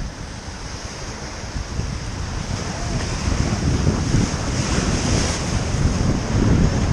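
Ganga river water rushing past a raft, with wind buffeting the microphone; the rushing grows louder over the second half.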